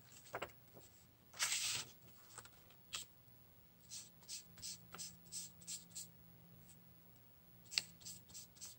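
Soft scratchy strokes of a paintbrush dabbing paint onto paper, coming in a run of about three a second. About a second and a half in, a louder rustle of the paper being handled.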